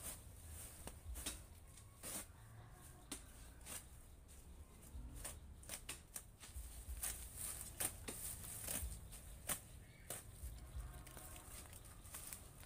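Irregular crinkling and rustling of a woven plastic sack being handled and opened, with scattered sharp crackles.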